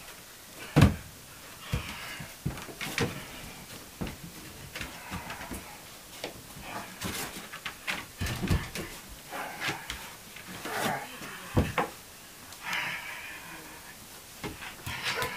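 Rough play between dogs and a person on a carpeted floor: scuffling and rustling broken by irregular knocks and thumps, the loudest about a second in and another near the twelve-second mark.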